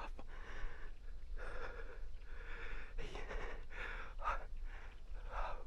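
A man breathing hard close to the microphone, a run of heavy breaths in and out, as after the exertion and excitement of a stalk and a shot.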